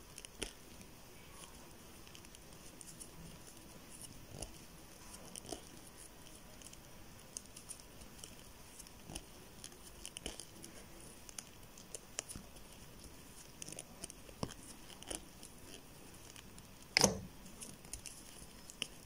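Faint, irregular soft ticks and rustles of a crochet hook and yarn as double crochet stitches are worked, with one louder knock about seventeen seconds in.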